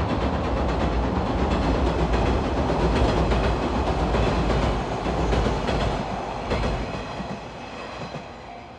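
A train running past close by, a loud rumble and rail noise that dies away over the last couple of seconds.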